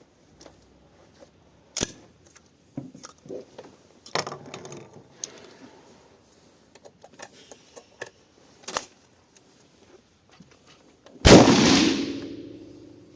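A single loud shot from an IZh-27 shotgun about eleven seconds in, with a ringing tail that fades over about two seconds. Before it come several short, sharp clicks and knocks.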